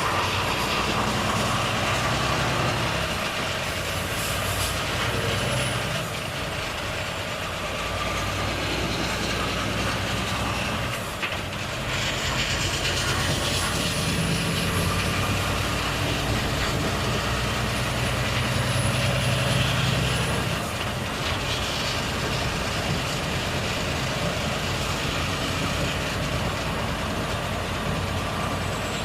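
Volvo FH truck's six-cylinder diesel engine running on the move, its note rising and falling several times as the load changes, over steady road noise. A brief dip and a sharp noise come about eleven seconds in.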